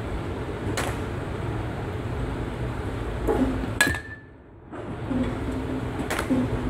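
A metal bat strikes a pitched ball about four seconds in with a sharp ping and a short ringing tone. A lighter knock comes about a second in, over a steady low hum.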